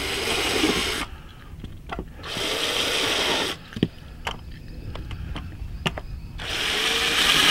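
Cordless drill running in three short bursts as it bores into a fibreglass-reinforced plastic (FRP) panel backed by wood, its motor whine shifting slightly in pitch during each run. A few sharp clicks fall between the runs.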